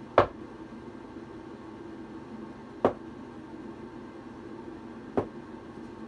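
Three short, sharp knocks, about two and a half seconds apart (one right at the start, one near the middle, one near the end), over a steady low hum.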